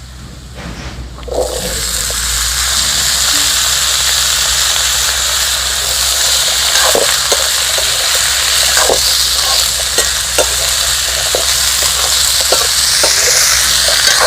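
Chopped raw papaya tipped into hot mustard oil in a kadai, setting off a loud sizzle about a second in that carries on steadily. From about halfway a spatula stirs and scrapes through the pan in short clicks.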